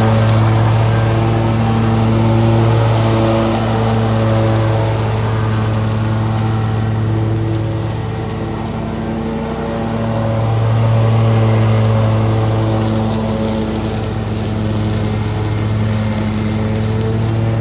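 Zero-turn riding lawn mower's engine running at steady mowing speed, a continuous drone with its blades cutting wet grass. The drone dips a little about halfway through and then swells again as the mower moves.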